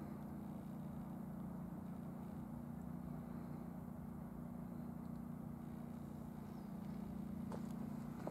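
A steady low mechanical hum, like an engine running at a constant speed, with a few faint clicks near the end.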